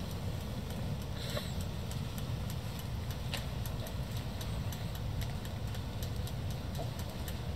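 Bridgeport vertical mill's saddle being hand-cranked forward on its Y-axis: faint, irregular ticks from the crank and leadscrew over a steady low machine hum.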